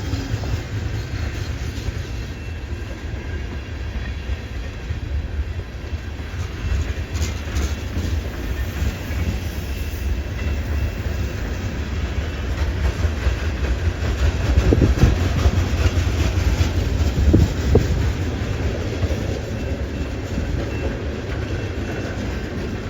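Freight train rolling slowly past: a steady low rumble of railcar wheels with clickety-clack over the rail joints and junction switch, and two louder knocks about 15 and 17 seconds in.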